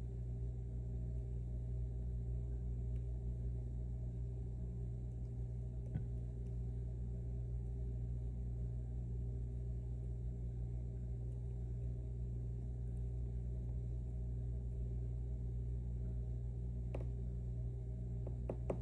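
A steady low hum, with a couple of faint clicks from a lock pick setting pins in a tensioned five-pin pin tumbler lock while working toward a false set.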